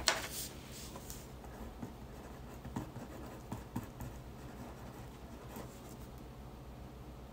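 A pen writing on paper: faint, irregular scratching strokes. A sheet of paper rustles loudly as it is moved into place at the very start.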